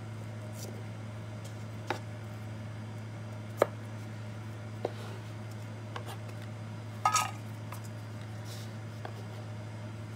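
A kitchen knife taps a cutting board a few times, well spaced, while slicing garlic cloves. About seven seconds in comes a louder short clatter as the slices are scooped into a stainless steel bowl. A steady low hum runs underneath.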